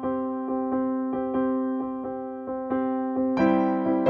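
Background music: a keyboard tune of steady, evenly spaced notes that grows louder with a new chord about three seconds in.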